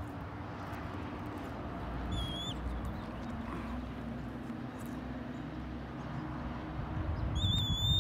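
Two thin, high whistled bird calls, a short bending one about two seconds in and a longer one near the end, over a low steady rumble.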